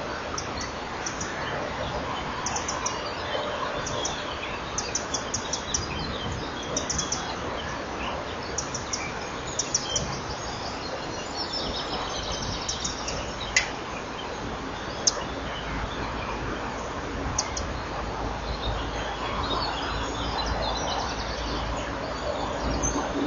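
Bird chirping in quick runs of high, thin notes, over a steady hiss. Two sharp clicks come about halfway through.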